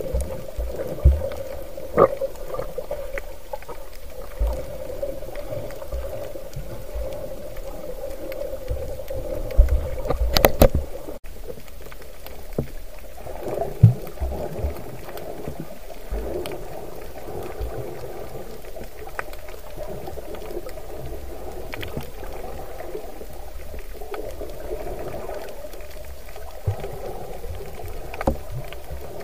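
Muffled underwater sound from an action camera held below the surface while snorkeling: a steady dull rushing hum, with scattered low thumps and knocks and a louder burst about ten seconds in.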